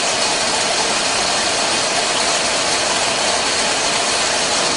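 Steady machine noise of a beverage-can production line: a dense, even mechanical din with no clear rhythm.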